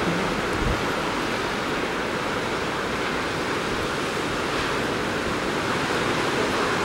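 Ocean surf breaking and churning over coastal rocks: a steady rush of foaming white water, with a brief low thump less than a second in.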